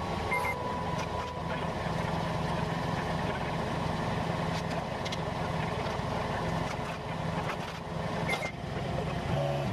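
Engine of a Genie GS-3369RT rough-terrain scissor lift running steadily while the platform is lowered.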